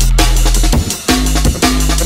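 Drum and bass music: fast drum hits over a heavy, held sub-bass line that drops out briefly about a second in.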